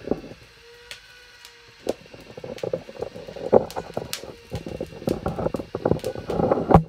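Handling noise: irregular knocks, clicks and rustles, coming thick and fast after about two quiet seconds that carry a faint steady hum.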